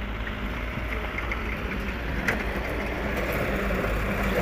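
Diesel engine of an excavator running steadily while it works a heap of soil, a continuous low rumble with a hum, with one sharp clack a little past halfway.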